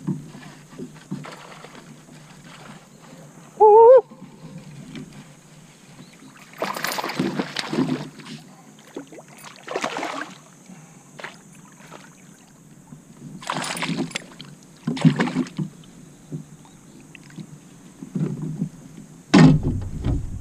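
Handling noises from fishing gear in a kayak: a string of short noisy bursts, each about a second long, as the rod and spinnerbait are worked. About four seconds in comes a brief, loud, wavering tone that rises in pitch.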